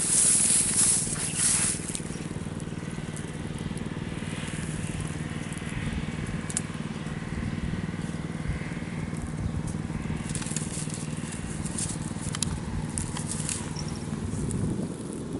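Strong wind buffeting the microphone in loud gusts for about the first two seconds, then easing to a steadier outdoor rush under a steady low hum, with a few faint clicks.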